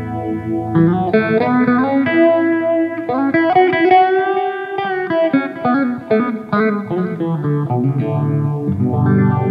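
SQOE SEST250 electric guitar played through an M-VAVE Cube Baby portable effects unit: a lead solo line of quick single notes, with a held note bent up and back down around the middle, settling into lower sustained notes near the end.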